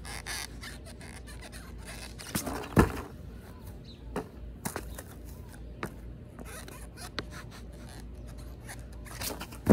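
Skateboard popped and flipped on grass in kickflip attempts: a string of knocks and thuds as the tail pops and the board lands, the loudest about three seconds in and another near the end, with light scuffing of shoes and board on the grass between them.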